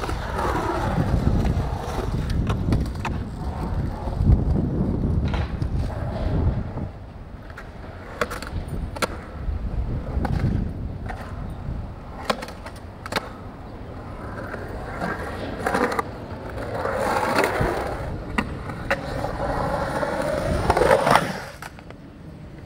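Skateboard wheels rolling on concrete: a rumble with a whir that sweeps up and down in pitch as the board rides through the transitions. Sharp clacks of the board and trucks striking the concrete come several times, most of them in the middle of the stretch.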